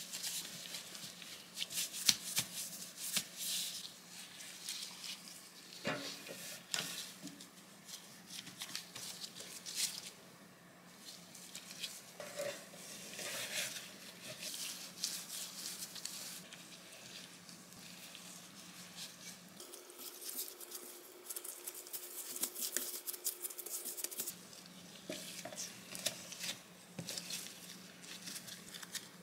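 Close-up hand sounds of latex-gloved hands rolling and pressing soft bread dough on a wooden board and tucking it into a metal loaf pan: soft rustles, squishes, pats and small clicks, over a faint steady hum.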